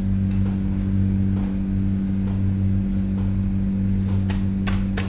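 A steady low hum from a kitchen motor or electrical appliance, with a few faint light clicks near the end.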